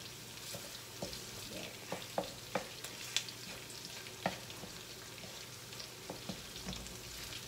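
Chopped garlic sizzling softly in hot oil in a nonstick wok. A wooden spatula stirs it, with irregular taps and scrapes against the pan every half second to a second.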